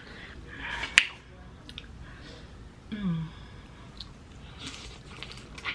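Close-miked eating sounds: wet mouth clicks and smacks while chewing seafood, with a sharp click about a second in. A short falling hum comes about three seconds in.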